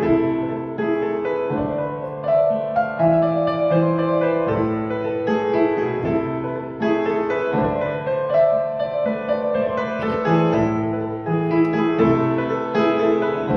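Piano playing an instrumental interlude of slow, sustained chords that change every second or two, with no voice.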